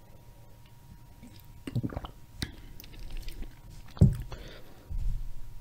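Close-miked drinking from a can: gulps, swallows and wet mouth clicks after a quiet start. A sudden loud thump comes about four seconds in.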